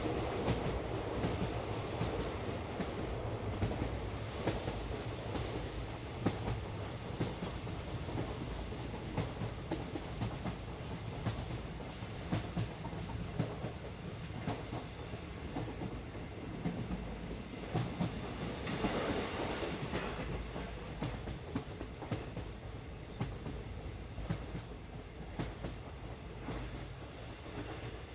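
Toy train running on its narrow track: a steady rumble with the wheels clicking irregularly over the rail joints.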